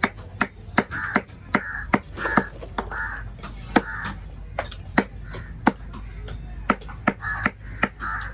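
Large fish-cutting knife chopping fish steaks into chunks on a wooden log block: a steady run of sharp chops, two or three a second.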